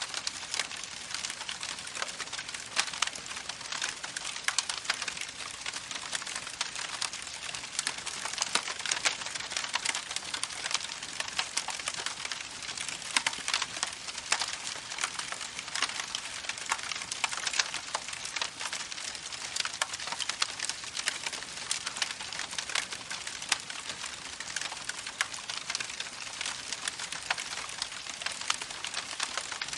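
Campfire crackling, with a dense run of irregular small pops and snaps, over the steady rush of a babbling creek.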